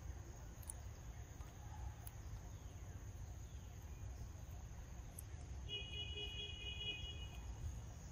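Faint outdoor ambience with a steady low rumble and a few faint ticks. About six seconds in comes a high-pitched call lasting about a second and a half.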